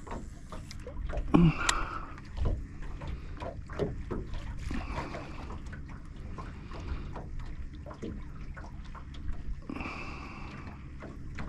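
Water lapping against the hull of a small boat, with scattered light knocks and clicks and one louder knock about a second and a half in.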